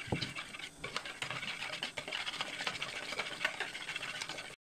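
Wire whisk beating a thick egg and sour-cream mixture in a plastic bowl: rapid, rhythmic clicking and scraping of the wires against the bowl. It cuts off suddenly near the end.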